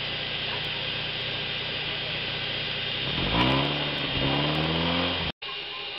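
Toyota RAV4 engine heard at the tailpipe, idling with a steady exhaust hiss, then revved about three seconds in, its pitch rising and then holding before the sound cuts off abruptly near the end.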